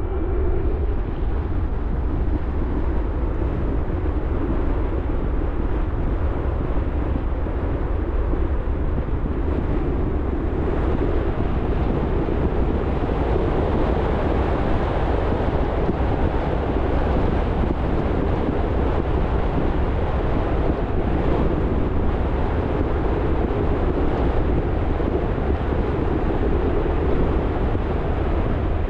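Steady road noise of a car being driven: a low rumble of engine and tyres on the pavement with a hiss of tyre and air noise above it.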